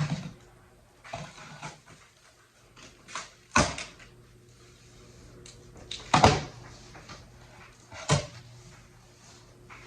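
Knocks and thuds from things being handled while a lawn mower is unboxed, with four louder thumps about two to three seconds apart over a faint steady hum.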